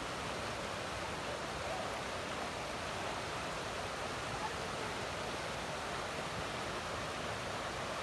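Mountain river rushing over rocks and small rapids, a steady even rush of water.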